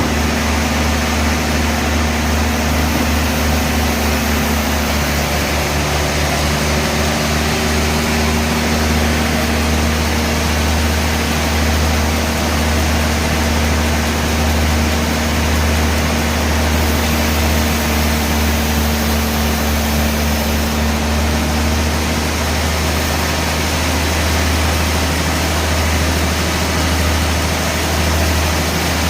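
Sawmill band saw machinery running with a steady low hum and even noise, without changes or cutting strikes.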